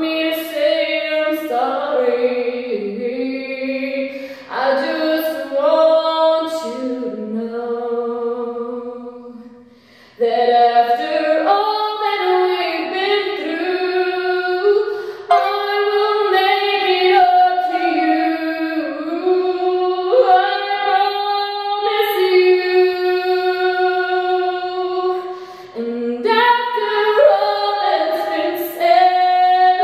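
A woman singing a slow ballad a cappella in a tiled stairwell, with long held notes and one short break about nine seconds in.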